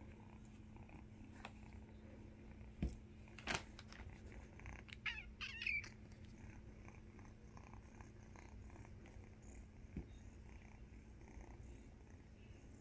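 Orange tabby kitten purring steadily, with a brief high, wavering mew about five seconds in and a few knocks around three and ten seconds in.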